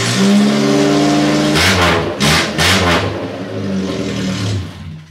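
1976 Chevy LUV's Isuzu four-cylinder engine running loud with its muffler cut off, revved a few times in the middle, then dying down near the end.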